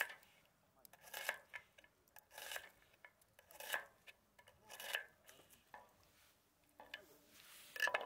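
Fedeca folding cooking knife slicing through a raw onion and onto a wooden cutting board: about six slow, separate cuts, roughly one every second and a quarter, with a longer pause before the last one.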